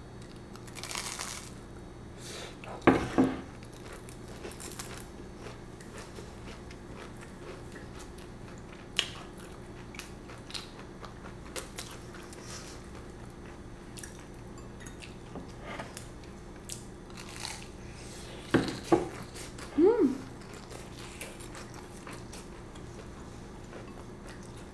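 Crunching bites into a breaded, deep-fried potato and ground-beef croquette, then chewing, with the sharpest crunches about three seconds in and again near the end.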